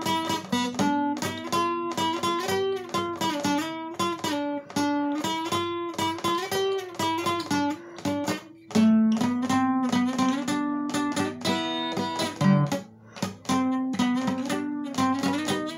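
Steel-string acoustic guitar played solo, a steady stream of plucked notes and chords with a couple of brief pauses.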